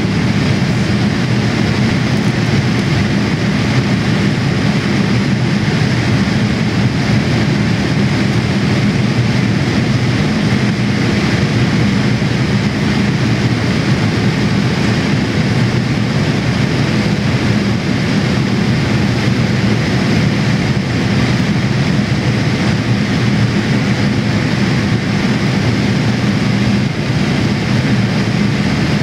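Steady cabin noise of a Boeing 787-8 in flight, heard from a window seat: the low, even drone of airflow and its Rolls-Royce Trent 1000 turbofans, with a faint steady hum.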